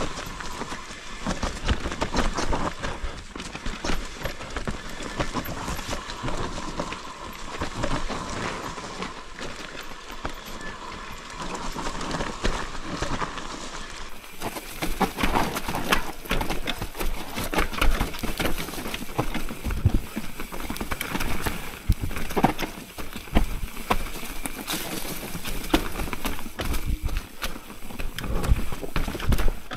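Mountain bike descending a rough forest trail: tyres on dirt and leaves over a hiss, with a dense, uneven clatter of knocks and rattles from the bike over roots and bumps. The sound turns brighter and hissier about halfway through.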